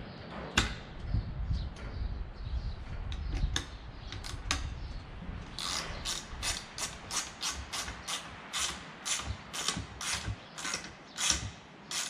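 Scattered knocks and clicks of metal parts being handled, then, from about six seconds in, a ratchet wrench clicking in a steady rhythm of about three strokes a second as the propeller hub bolts are snugged up.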